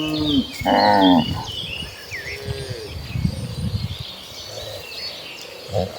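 Cattle mooing: a call trailing off at the start, a loud short moo about a second in, a fainter one around two seconds in, and another beginning right at the end.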